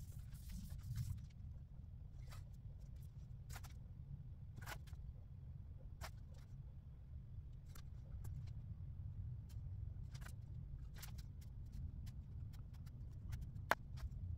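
Low, steady shop hum, with a dozen or so faint, short clicks and taps scattered through it.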